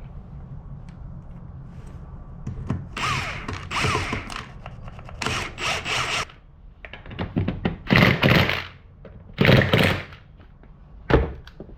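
Impact wrench running the UTV's wheel lug nuts on in about five short bursts, each a second or less, its pitch rising as it spins up.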